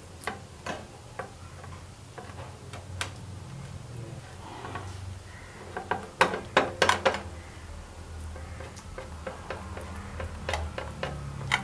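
Silicone spatula pressing and smoothing a stiff milk-powder burfi mixture in a steel bowl, with scattered clicks and taps against the metal bowl and a quick cluster of them about six seconds in. A low steady hum runs underneath.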